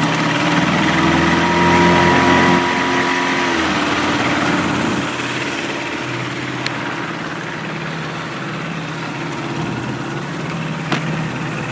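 Small gas outboard motor on a jon boat running steadily at idle speed. A higher engine tone holds for the first few seconds, then drops away.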